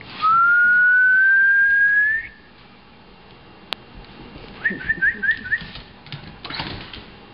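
A person whistles one long note that rises slowly in pitch for about two seconds, then a quick run of five short chirping whistles. A sharp click falls between them, and light scuffling taps follow near the end.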